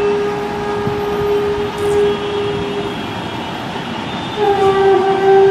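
A melodic instrument playing long held notes in Raga Yaman. One note is sustained and slowly fades, then a new, slightly higher note enters a little after four seconds.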